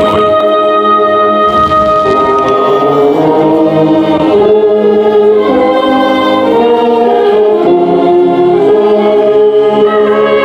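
Choral music: voices singing sustained, slow-moving chords, with a high held note over the first three seconds.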